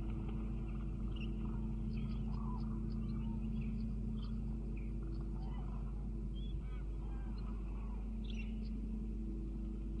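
Eurasian cranes calling from a flock, with short scattered calls and chirps throughout, over a steady low hum.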